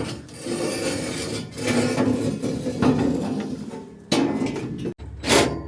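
Metal tools and parts clanking and knocking, with a sharp knock about four seconds in and another near the end.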